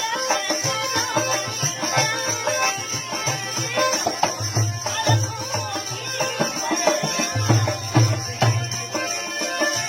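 Marwari folk music: a melody instrument playing over a beating hand drum.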